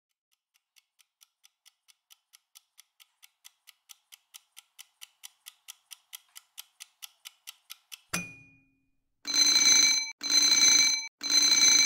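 A countdown timer's ticking, fast at about four or five ticks a second and growing louder, then a sharp click at about eight seconds as it runs out. Three long alarm rings follow, each nearly a second long, signalling that the time is up.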